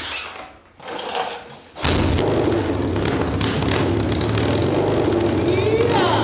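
Yamaha XS650 parallel-twin being kick-started: a couple of kicks turn it over, then a little under two seconds in it fires and keeps running, its pitch rising and falling near the end. This is the bike's first start, made in order to set the ignition timing.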